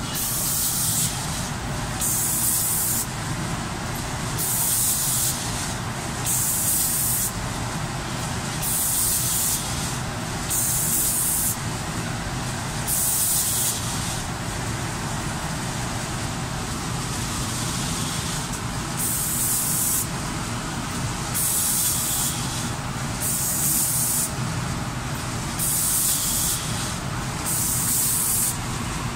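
Spray guns of an automatic spray-painting machine for cabinet doors hissing in short bursts, about one every two seconds, as the gun head sweeps across, over the machine's steady running noise. The bursts pause for a few seconds midway.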